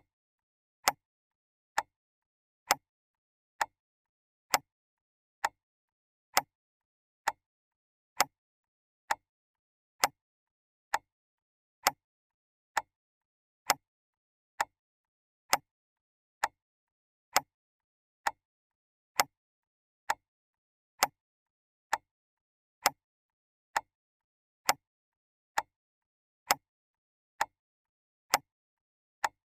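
Clock ticking steadily, one sharp tick a little faster than once a second, with silence between ticks.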